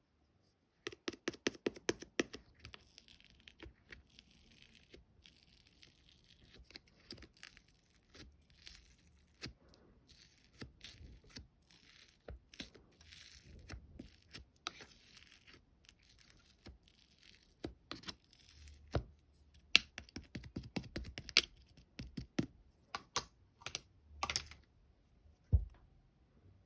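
Slime being squished and stretched by hand, giving sharp sticky pops and clicks over a faint crackle, with a quick run of pops about a second in.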